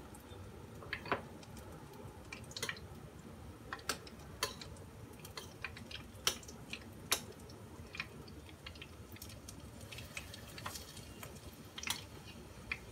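A spoon and chopsticks stirring and mashing a wet batter in a ceramic bowl: soft squishing with irregular light clinks of the utensils against the bowl.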